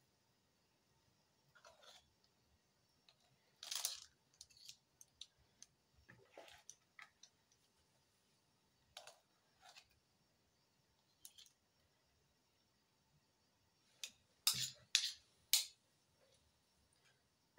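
A metal tablespoon scraping and tapping against a bowl as soft cookie dough is scooped out and dropped onto parchment paper. The sounds are short and scattered, with a quick run of sharper scrapes near the end.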